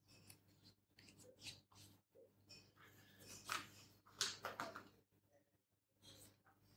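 Sheets of paper rustling faintly as pages are turned over and shuffled, in short scattered bursts, a little louder a few seconds in.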